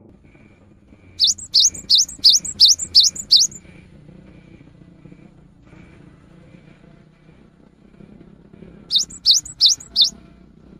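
Cinereous tit (gelatik batu) singing: a quick run of about seven sharply rising whistled notes, then after a pause a shorter run of four. Faint short high pips repeat in the background.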